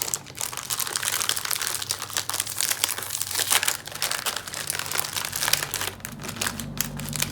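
Plastic snack wrapper being crinkled and pulled open by hand: a steady, irregular crackling rustle of a cracker packet being handled.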